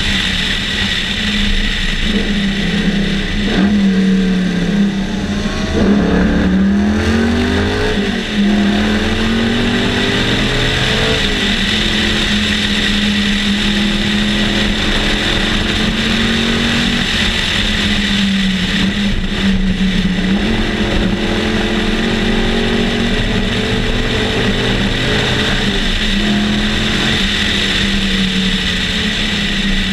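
Sunbeam Tiger race car's Ford V8 engine running hard under load, its pitch climbing and dropping back with throttle and gear changes between longer steady stretches.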